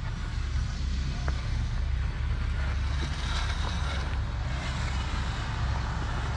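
Steady low rumble of a motor vehicle engine running, with a constant hiss over it.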